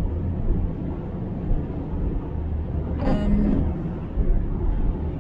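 Steady low road and engine rumble inside a moving car's cabin, with a brief short sound about three seconds in.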